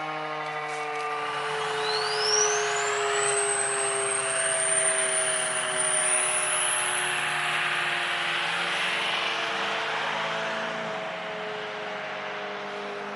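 Federal Signal Model 5 mechanical warning siren winding down at the end of its test, its steady tone slowly falling in pitch as the rotor coasts.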